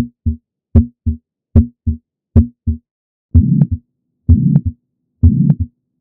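Heart sounds heard through the bell of a stethoscope: four normal lub-dub beats with silence between them. About three seconds in they give way to the murmur of mitral regurgitation, a noisy sound about half a second long filling each beat, which repeats three times.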